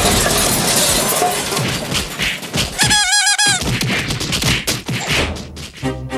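Cartoon slapstick sound effects: a long jumble of crashing, smashing and clattering impacts, with a short warbling cartoon tone about three seconds in and a run of quick knocks near the end.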